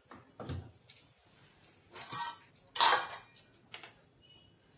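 Kitchen handling sounds: a few scattered clinks and knocks of utensils and dishes, the loudest a short clatter about three seconds in.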